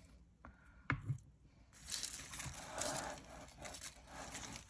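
Light crinkly rustling of paper being handled, with many small sharp crackles, starting a little under two seconds in. A single soft click comes about a second in.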